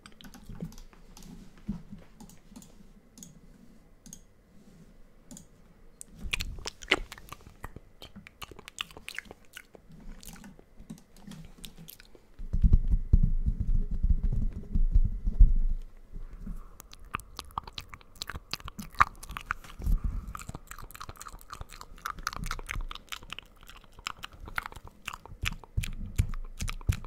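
Close-miked ASMR hand and mouth sounds: many quick crackling clicks from fingers working over the microphone grille and wet mouth sounds. From about 12 to 16 seconds in there is a louder low rubbing rumble of hands on the microphone.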